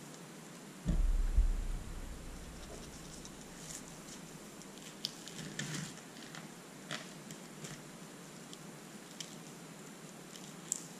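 A heavy, low thud about a second in as a large fish head is set down on a plastic cutting board. Then soft scattered taps and clicks as seasoning is shaken from a plastic spice bottle and patted onto the fish.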